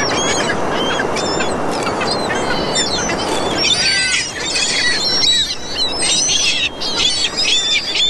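A flock of gulls calling over and over in many short, overlapping cries as they crowd in for handouts of food.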